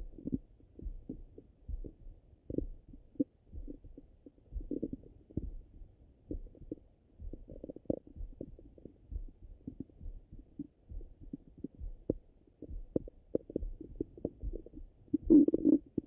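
Bowel sounds of a full stomach heard through a Littmann stethoscope on the abdomen: scattered soft clicks and short gurgles at an irregular pace, with a louder gurgle near the end.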